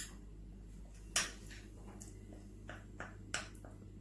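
A metal spoon tapping and scraping against a small glass bowl as honey is scraped out of it: a handful of light clicks, the loudest about a second in.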